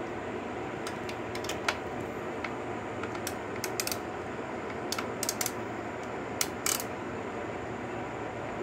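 Ratchet and socket on an extension working in the valve-inspection opening of a Suzuki DR-Z125 cylinder head: short metallic clicks in small irregular clusters, over a steady hiss.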